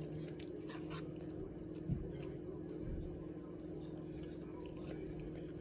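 Close-up eating sounds: scattered small clicks and wet mouth noises as food is picked from a plate with the fingers, bitten and chewed, with a dull thump about two seconds in, over a steady low hum.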